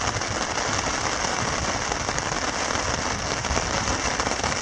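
Heavy rain pouring down steadily in a downpour, a dense, even patter of drops.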